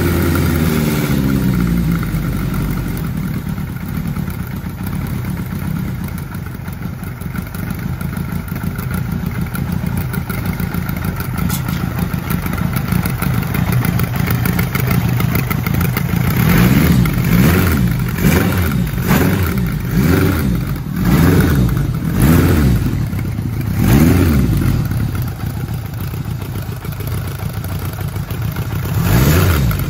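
1977 Kawasaki KZ1000's air-cooled inline-four engine running on its first startup after an engine rebuild. It runs steadily at first, then from about halfway through the throttle is blipped several times, the revs rising and falling again.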